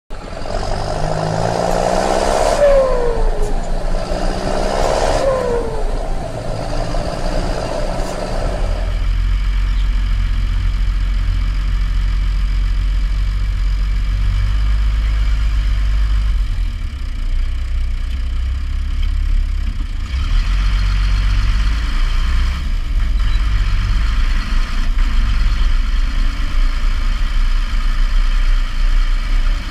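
John Deere 3350 tractor's six-cylinder diesel engine running, heard from inside the cab. It is preceded by about eight seconds of an intro sound with two falling swoops. The engine drone is steady and low, growing somewhat fuller from about twenty seconds in as the tractor drives.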